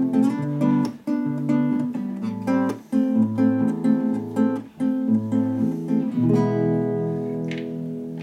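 Nylon-string classical guitar played in a rhythmic strummed and plucked chord pattern, ending about six seconds in on a final chord left to ring out and fade.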